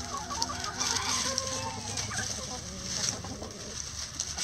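Several hens clucking, with short overlapping calls throughout, while they scratch through a pile of dry leaves. The leaves rustle and crackle under their feet.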